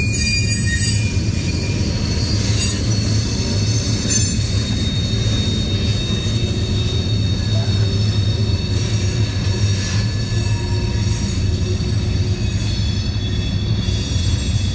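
Freight cars of a CSX mixed freight train rolling past: a steady rumble of steel wheels on rail, with thin, high wheel squeal held throughout.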